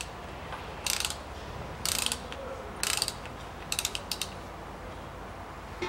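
Ratchet wrench with a 27 mm socket clicking in four short bursts about a second apart as it is worked back and forth to unscrew the oil filter cap.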